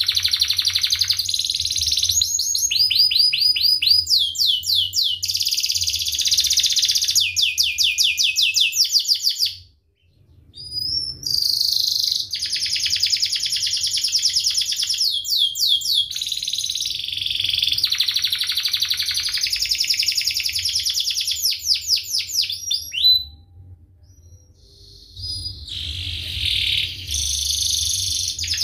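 Domestic canary in full song: dense rolling trills and fast runs of sharp, falling chirps, breaking off briefly twice.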